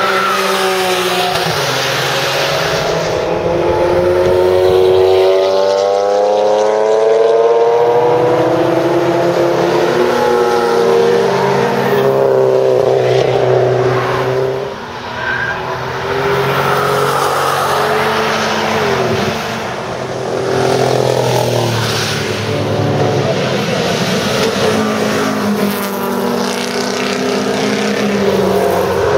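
Porsche racing cars at speed on a circuit, engines revving up through the gears again and again as cars pass one after another, with a short lull about halfway through.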